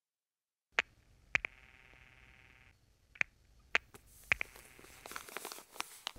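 A few sharp, separate clicks and taps, then soft rustling with small clicks near the end, like fabric and bedding being handled.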